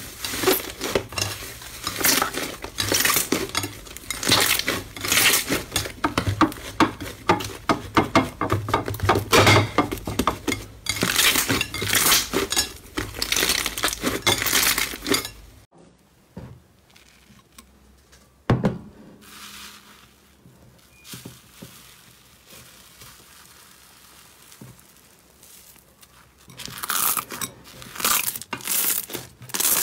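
Thick slime squeezed and kneaded by hand, a dense run of sticky crackles and pops from trapped air. About halfway in it turns much quieter, with a single knock, and the crackling squelch comes back near the end as slime is pressed in a glass bowl.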